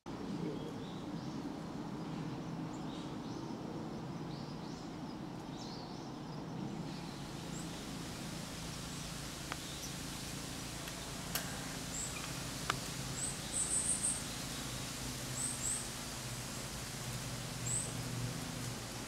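Outdoor ambience of steady low background noise with small birds chirping: short high chirps, more of them in the second half, including a quick run of chirps about two-thirds through. There are a few faint clicks.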